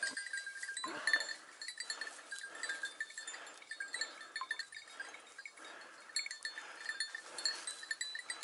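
Bells on a pack of Segugio hounds jingling irregularly as the dogs work through dry grass, with rustling of the grass and one louder rustle about a second in.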